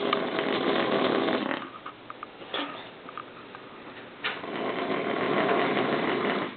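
A person snoring: two long, rough snores a few seconds apart, with a quieter gap between.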